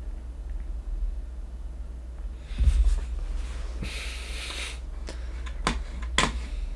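Low steady hum with a low thump about two and a half seconds in and a short hissing rush of noise a second later. Near the end come two sharp clicks, the start of computer keyboard typing.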